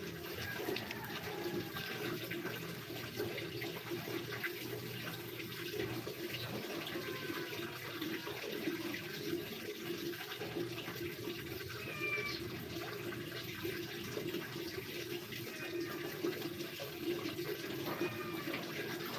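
Steady rushing noise like water running from a tap.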